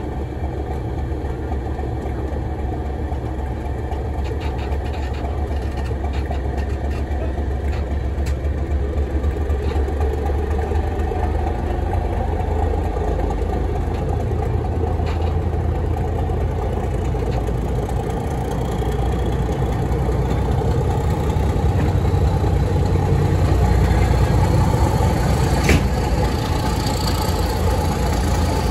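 Class 31 diesel locomotive's English Electric V12 engine running under power, its note slowly rising and growing louder as the train gathers speed. There is one sharp click near the end.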